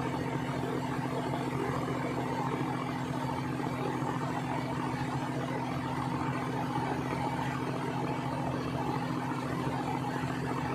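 Diesel engine of a railway track-maintenance train running steadily, a low even drone that does not change.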